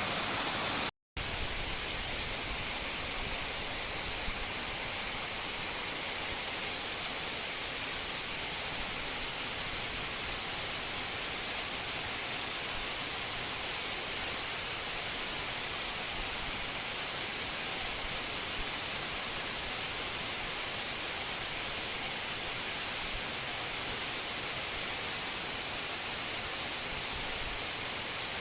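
Waterfall rushing, a steady hiss of falling water with no change over time. The sound cuts out completely for a moment about a second in.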